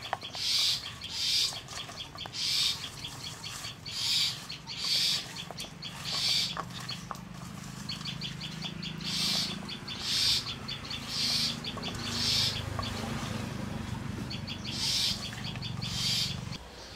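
Hands squeezing and turning oil-coated cut taro stolons, potato sticks, onion and green chillies in a steel bowl: a wet, crackly squelch with each squeeze, roughly once a second. A low steady hum runs underneath from about five seconds in and stops just before the end.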